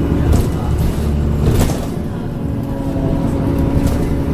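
Transbus Trident double-decker bus engine running under way, a steady low drone with held tones above it, and two sharp rattles about half a second and a second and a half in.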